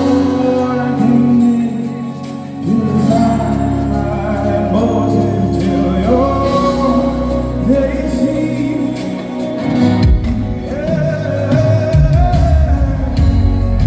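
Gospel worship music: a solo voice singing long, held, sliding notes over sustained keyboard chords and bass.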